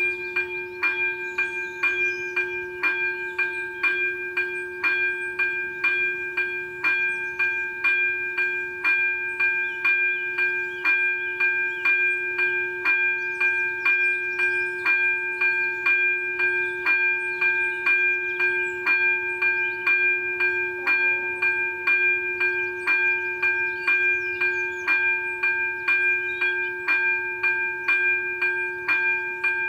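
Electronic warning bell of an AŽD 97 level-crossing signal ringing in an even, steady rhythm of about two strikes a second, each stroke ringing over the last. The crossing is activated, warning of an approaching train.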